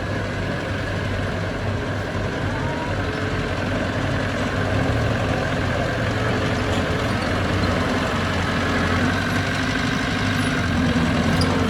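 Heavy diesel engine of construction machinery running steadily, growing a little louder about five seconds in.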